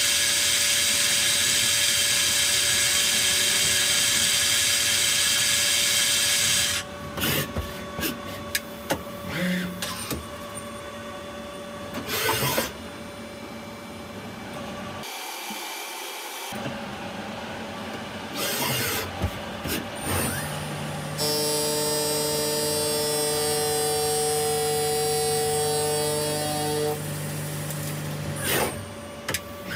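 Tsugami CNC turning centre machining brass parts: a loud steady cutting hiss for about the first seven seconds, then quieter running with scattered clicks and clunks. About two-thirds through, a steady whine of several held tones sets in for about six seconds, then stops.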